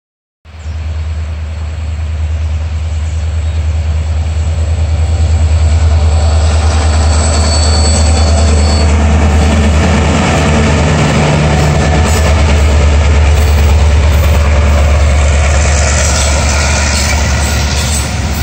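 Freight train passing close by, hauled by two diesel-electric locomotives, DE22063 and DE24279: a loud, steady low diesel drone that builds over the first few seconds, with thin high wheel squeal in the first half.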